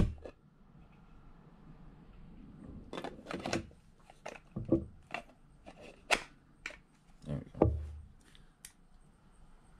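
Sharp plastic clicks and knocks of a DeWalt 20V battery being worked in its 3D-printed battery adapter, about ten of them spread from about three to nine seconds in.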